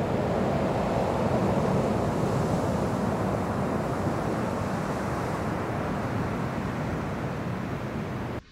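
Steady rush of breaking ocean surf with wind on the microphone, cut off suddenly near the end.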